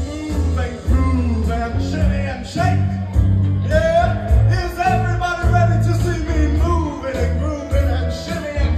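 A singer singing live into a microphone over music with a steady, heavy bass line, in a hall.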